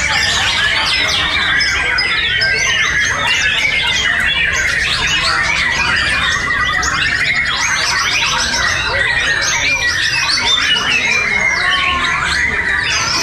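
Many caged white-rumped shamas singing at once in a contest round: a dense, loud tangle of overlapping rapid trills, whistles and chattering phrases.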